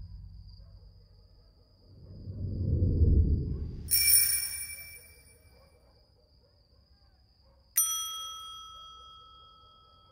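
Title-sequence sound effects: a low rumbling swell builds into a bright, bell-like metallic hit about four seconds in. A second sharp metallic hit comes near eight seconds and rings out for about two seconds. A faint, steady high tone runs underneath.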